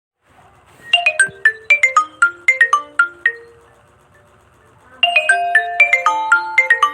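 Smartphone ringtone: a quick melody of short, ringing notes that starts about a second in, then repeats after a short pause about five seconds in.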